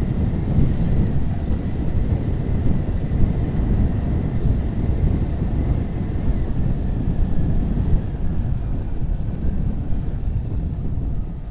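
Wind rushing over the microphone of a moving motorcycle, a steady low noise, with the motorcycle running along the road underneath.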